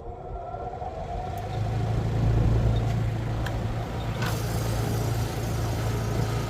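Air conditioner starting up through an Easy Start soft-starter: the fan is running, then about a second and a half in the compressor kicks on with a deep steady hum that swells and settles, with a few sharp clicks along the way.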